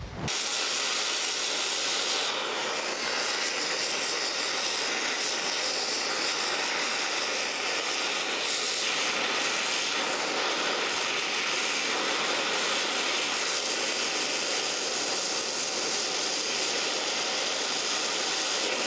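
Oxy-fuel brazing torch flame hissing steadily as it heats a cast iron casting for bronze brazing. The hiss starts suddenly as the torch is relit, then holds level.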